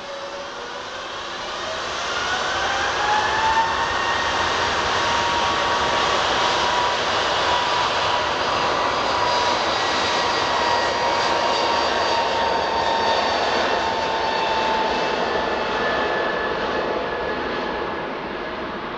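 Embraer E190-E2 airliner's Pratt & Whitney PW1900G geared turbofans at takeoff power. A whine rises over the first few seconds, then holds as a steady loud jet rush with high whining tones through the takeoff roll, lifting off near the end.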